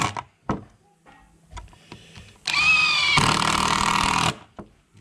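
Cordless impact driver driving a long screw into a wooden plank. A run cuts off just as the clip begins; after a pause with a few small clicks, it runs again for about two seconds with a steady whine and stops.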